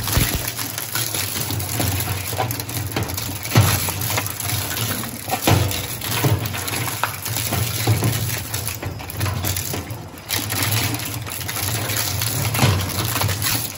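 Twin-shaft shredder's cutter discs crushing hard plastic scrap: irregular cracking and clattering over the steady low hum of the drive, with a few louder cracks.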